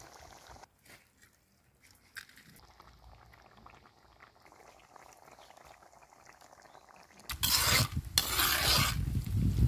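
Cashew curry simmering faintly in an earthenware pot; about seven seconds in, a spoon starts stirring it, three loud scraping strokes.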